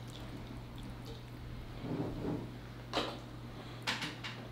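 Soft wet squelching from a sauce-covered pig foot handled in a black gloved hand, with two short sharp clicks about three and four seconds in, over a faint steady low hum.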